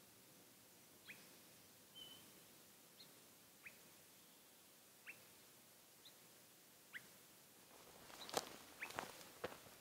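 Faint, short high chirps repeat about once a second, many dropping in pitch, from a bird or small animal in a quiet forest. About eight seconds in, footsteps crunch on the litter of the forest floor, louder than the chirps.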